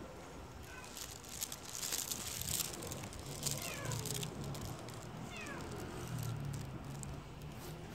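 A stray cat meowing several times, each meow short and falling in pitch. A scratchy rustling noise runs through the first half.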